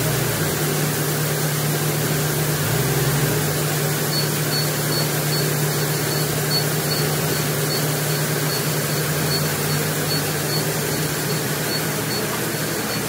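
UniCarriers forklift engine running over the steady drone of rice-hulling machinery, the engine briefly revving up and down twice, near the start and about three seconds in, to raise a full bulk bag of brown rice.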